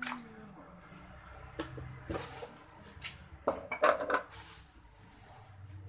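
Kitchenware being handled: a scatter of clinks and knocks of dishes and utensils, loudest and busiest about four seconds in, followed by a short hiss.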